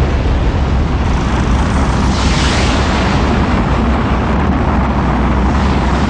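Rocket sled's rocket motors firing as the sled speeds down the track: a loud, steady rushing noise over a deep rumble, turning a little brighter about two seconds in.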